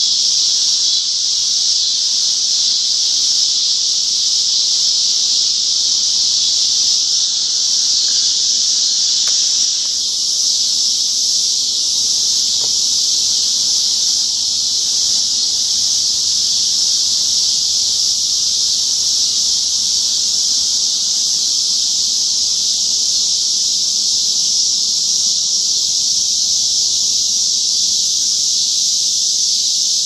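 A chorus of cicadas calling at full throttle: a loud, steady, high-pitched drone that holds without a break.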